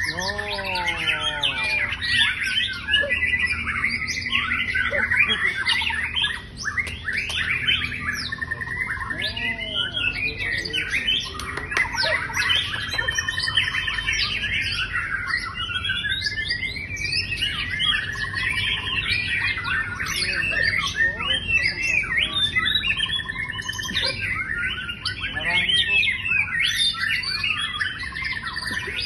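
Songbird song: a long, unbroken run of rapid chirps, trills and whistles, with stretches of quick evenly repeated notes.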